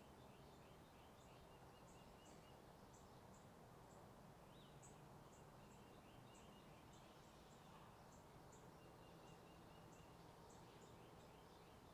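Faint birds chirping: short high chirps repeating every half second or so, with bursts of twittering, over a steady low rumble of distant highway traffic.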